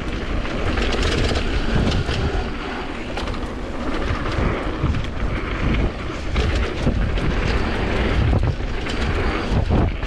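Commencal Supreme DH downhill mountain bike running fast down a dirt trail: a steady rumble of tyres and wind buffeting the camera's microphone, with frequent rattles and knocks from the bike over bumps.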